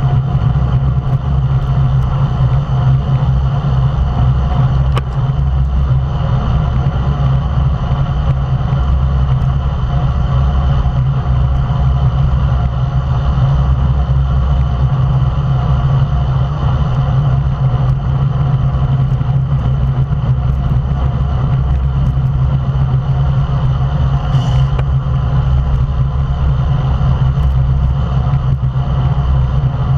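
Steady wind and road rumble picked up by a camera mounted on a road bike riding at racing speed in a bunch, a constant low drone.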